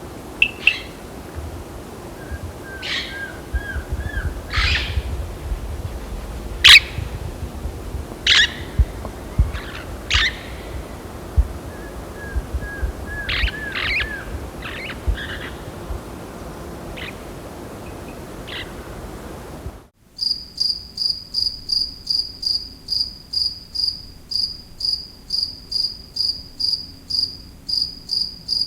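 Birds calling in scattered sharp calls and short hooked chirps over a low rumble. Then an abrupt change to a cricket chirping steadily on one high pitch, about two and a half chirps a second.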